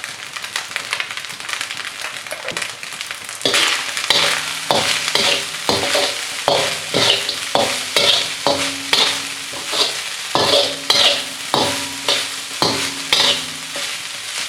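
Fried rice being stirred and tossed in a hot pan with a spatula, scraping against the pan over a light sizzle. From about three seconds in, the scraping strokes come regularly, about twice a second.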